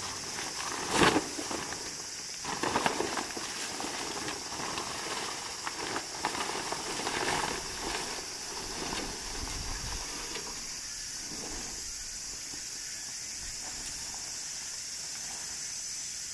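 Heavy tarp rustling and crackling as it is dragged off a cart bed and bundled up, loudest about a second in, with more handling a few seconds later and quieter after that. A steady high insect drone runs underneath.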